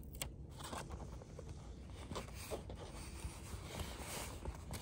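Faint rubbing and scraping of fingertips smoothing a clear Tear-Aid Type A patch onto the nylon fabric of an inflatable portaledge as its paper backing is peeled away, with scattered light crackles.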